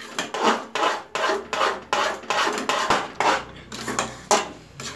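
Metal ladle scraping and knocking against a metal kadai while stirring thick sooji halwa, in a steady rhythm of about two or three strokes a second.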